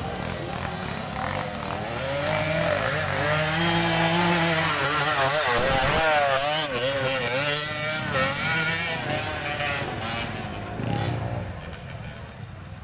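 Dirt bike engine revving hard as the bike climbs past on a rough trail. The pitch rises and falls quickly with the throttle; it is loudest in the middle, then fades as the bike moves away.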